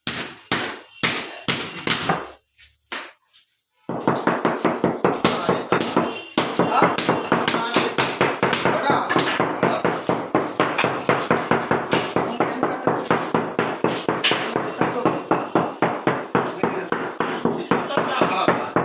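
Fast, repeated hammer blows during tile work, several strikes a second. They pause briefly early on, then run on steadily.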